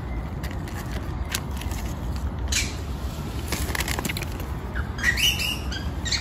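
Outdoor ambience with a steady low rumble, scattered faint rustles and clicks, a short rustle about two and a half seconds in, and a brief high, wavering squeak about five seconds in.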